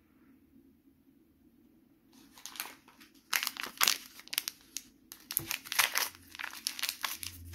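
A small plastic Stikeez blind-bag packet crinkling and tearing as it is pulled open by hand, in quick irregular crackles starting about two seconds in.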